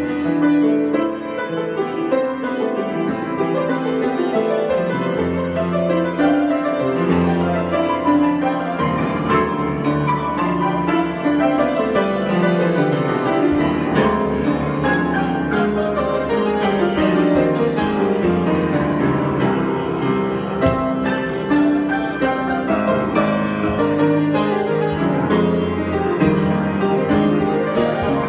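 Piano improvisation: continuous playing with dense chords and quick runs of notes sweeping down and back up about halfway through.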